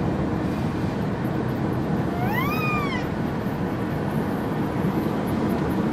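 Steady road and engine noise from inside a moving vehicle. About two seconds in, one short squeal rises and then falls in pitch.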